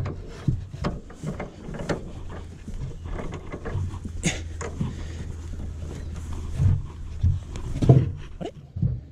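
Handling noise in an aluminium boat's under-deck storage compartment: rustling and irregular knocks as a fabric bag and coiled cables are pushed in under a carpeted hatch lid, with a few louder thumps near the end.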